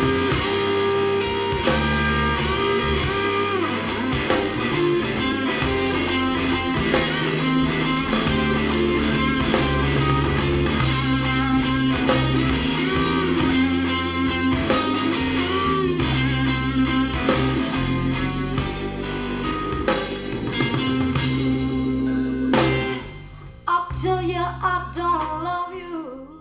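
Blues-rock song with guitar, singing and drums, played back through Soviet 10GDSh full-range speaker drivers as a listening test. The music drops away near the end and fades out.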